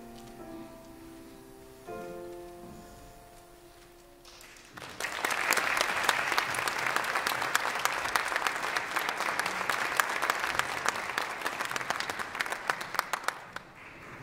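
The last sustained piano chords of a choir piece ring out and fade away, then audience applause breaks out about five seconds in and dies down near the end.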